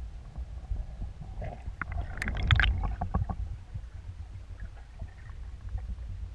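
Underwater sound through a camera housing on a speargun: a steady low rumble of water moving against the housing, with a burst of bubbling, crackling clicks about two to three seconds in.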